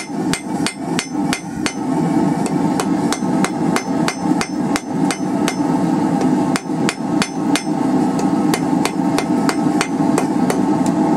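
Hand hammer striking red-hot wrought iron bars on an anvil, about three blows a second, forging the tack welds between the bars in. Each blow is followed by a short high ring, over a steady rushing noise underneath.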